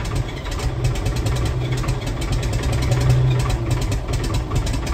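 David Brown 1690 tractor's six-cylinder diesel running roughly just after a cold start, firing on only a few of its six cylinders. The exhaust pipe is off, so the engine runs unsilenced; heard from inside the cab.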